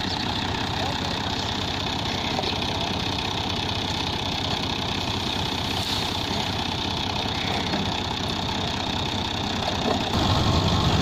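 Fiat 480 tractor's three-cylinder diesel engine running steadily while driving a wheat thresher through its PTO shaft, the engine and thresher blending into one steady mechanical din. About ten seconds in it gets louder and deeper.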